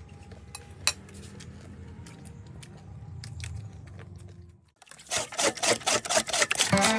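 A few soft clinks of a spoon on a plate, then, after a cut, a knife blade scraping the skin of a pig's head in a stainless steel basin in quick, loud strokes. Music comes in near the end.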